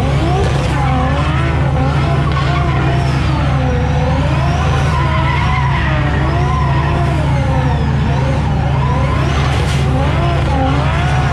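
Drift car sliding in circles: the engine is held at high revs that rise and fall over and over, under a continuous squeal of spinning tyres.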